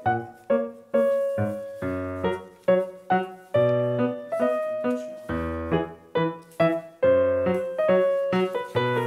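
Piano music: a quick run of struck notes, each dying away, over low bass notes.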